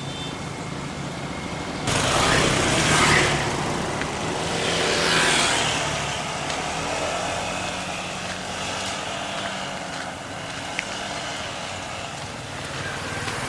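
Road vehicle running with steady engine and road noise, and two louder swells of rushing noise about two and five seconds in.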